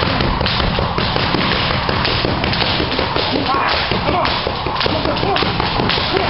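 Boxing gloves punching a coach's focus mitts: a quick run of sharp leather smacks, several a second, as combinations are thrown.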